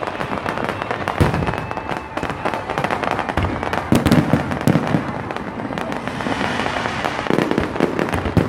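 Aerial fireworks display: dense crackling throughout, broken several times by dull booms of shells bursting.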